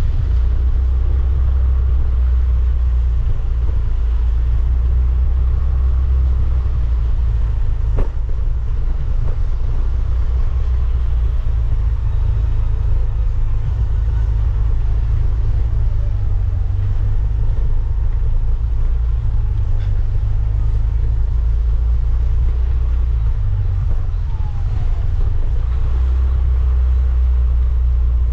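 Steady low rumble of a motorcycle ride: wind buffeting the microphone over engine and road noise, with one sharp click about eight seconds in.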